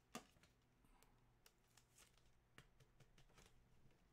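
Near silence with a few faint, soft clicks and rustles of trading cards being handled and flipped through by hand. The clearest click comes just after the start.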